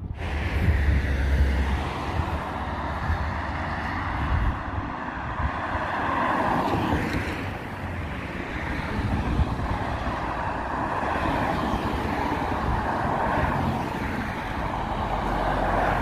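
Steady road traffic on a busy flyover: cars passing one after another with a low rumble, swelling louder several times as vehicles go by.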